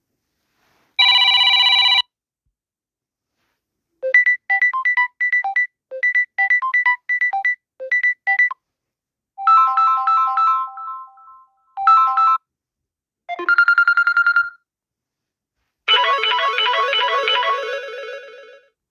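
Samsung Galaxy A30 ringtones played one after another: about five different short melodies, separated by brief silences. The first is a one-second tone, the second a quick run of plucked notes, and a fuller melody begins near the end.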